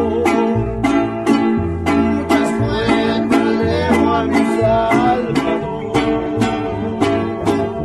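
Mariachi band playing: strummed strings on a steady beat over deep bass notes, with a melody line held above.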